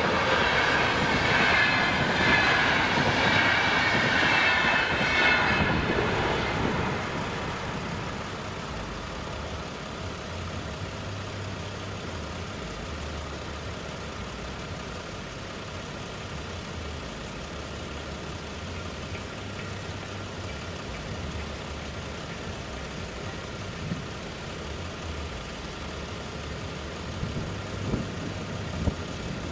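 A passenger train running over a level crossing, loud for the first few seconds and fading away by about seven seconds in. Afterwards the crossing's warning bell keeps ringing faintly with a car engine idling low underneath.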